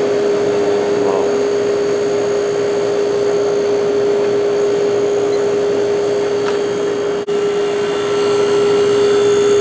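Window air conditioner running on low, its fan blowing steadily over a constant hum.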